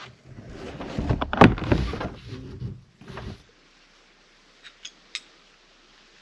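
Close handling noise as a rope line is pulled taut with a trucker's hitch: rustling and knocks with one louder thump about a second and a half in. It stops suddenly, leaving faint background with a few small clicks near the end.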